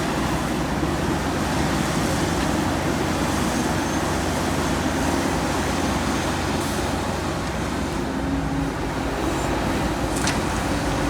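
Heavy diesel machinery running steadily at a constant pitch, with a couple of short sharp clicks near the end.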